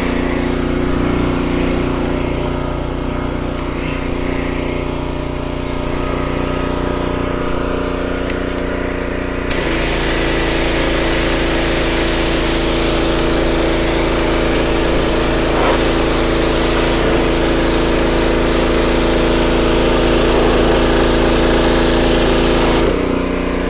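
Honda GP160 single-cylinder petrol engine running steadily, driving the pressure washer's pump. About nine seconds in, the lance trigger opens: a loud hissing water jet joins and the engine's note changes as the pump takes load, until the spray stops shortly before the end.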